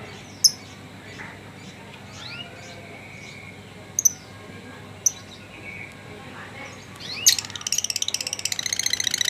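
Lovebird giving a few sharp, high chirps, then about seven seconds in breaking into a fast, chattering trill of rapidly repeated notes.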